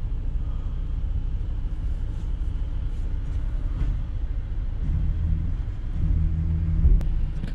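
Low vehicle engine rumble as the car stuck in mud is pulled out by another vehicle. A steadier, louder engine hum sets in about five seconds in, with one sharp click near the end.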